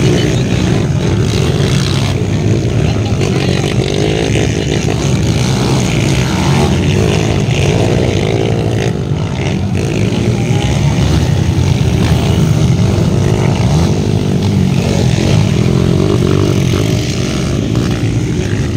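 Several Kawasaki KLX dirt bikes, four-stroke singles, racing past on a motocross track. Their engines run hard without a break, revving up and down through the whole stretch.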